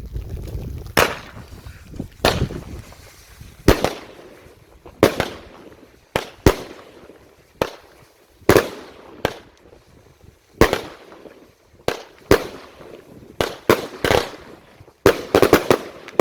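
An 18 mm salute battery cake (Royal Titanium Salute) firing its shots. Each shot is a launch thump followed shortly by a sharp bang, coming about every one to two seconds. Near the end the bangs come close together in the multi-shot finale.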